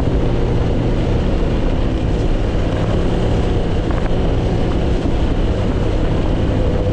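Snowmobile engine running at a steady speed while riding, a loud, even drone.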